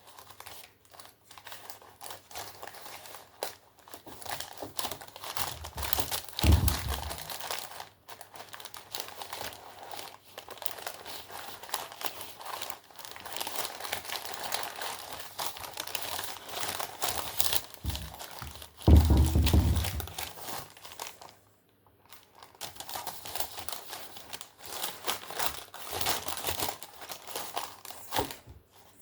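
Crinkly wrapping being handled, crumpled and torn in a series of irregular rustles and crackles, with two dull thumps, the louder one about two-thirds of the way in.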